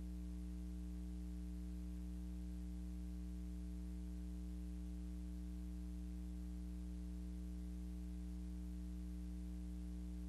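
Steady low electrical hum with faint hiss, unchanging throughout and with no other sound.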